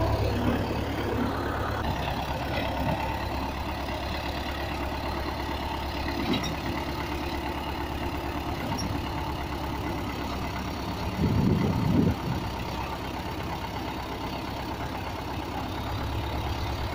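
Tractor engine idling steadily, with a short louder surge about two-thirds of the way through.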